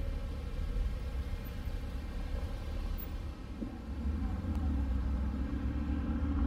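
Low, steady rumble of a pickup truck's engine and tyres heard from inside the cab while driving, growing louder about four seconds in, when a faint engine hum rises above it.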